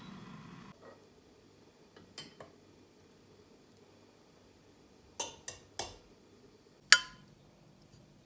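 Light clinks of dishes being handled: a couple of faint clicks, then three sharper clinks in quick succession and one louder, briefly ringing clink near the end.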